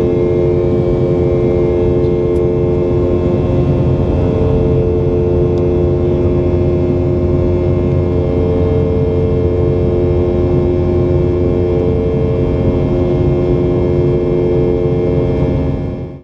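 Steady jet engine noise of a Boeing 717's rear-mounted Rolls-Royce BR715 engines heard inside the passenger cabin: a constant rush and rumble with several steady humming tones. It cuts off abruptly at the end.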